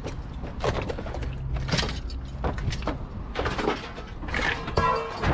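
Scrap metal clanking and rattling in a string of irregular knocks as pieces of scrap and wire are pulled and tossed.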